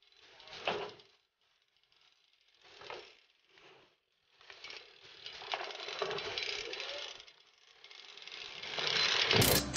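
BMX bike rolling over concrete: tyres and a rattling drivetrain. It comes as short passes about a second in and around three seconds, then a longer run that grows louder towards the end, with a sharp crack just before it stops.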